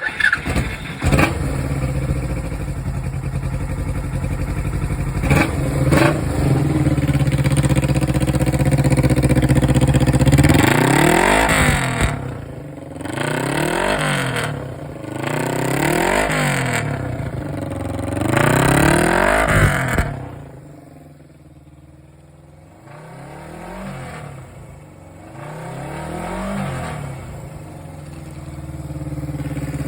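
Kawasaki Z250FT motorcycle's air-cooled parallel-twin engine heard at the intake with the intake silencer fitted. It idles steadily for about ten seconds, then is revved in four quick throttle blips that rise and fall in pitch. After that it drops back quieter, with two smaller blips and a last rise near the end.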